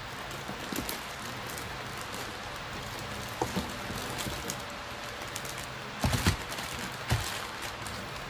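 Plastic packaging rustling and crinkling as a bagged liquid-cooler radiator and fans are handled, with a few short knocks, the loudest about six seconds in.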